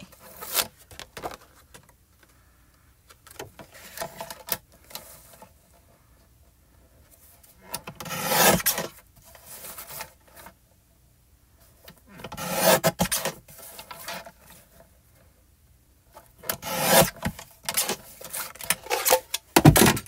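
Paper trimmer's sliding blade cutting through foil cardstock: about three strokes, each about a second long and a few seconds apart, with lighter sounds of paper being handled between them and a sharp knock near the end.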